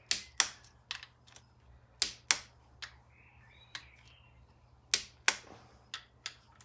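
Click-type torque wrench clicking off as the camshaft sprocket bolts are tightened to 35 N·m. Three sharp double clicks come about two and a half seconds apart, with fainter clicks between.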